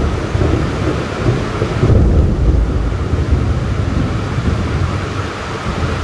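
Heavy rain falling steadily, with a long low rumble of thunder that swells about two seconds in and rolls on.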